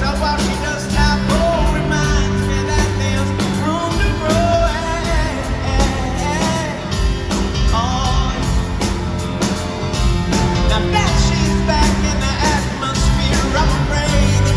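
Live rock band playing, with drums, piano and guitar under a male lead singer who sings wordless, held and wavering lines into a handheld microphone.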